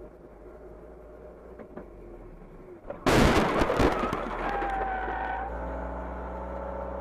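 Car collision: a low steady road and engine hum, then about three seconds in a sudden loud crash of impact with several hits over about a second. Steadier tones and hum follow, then the sound cuts off suddenly.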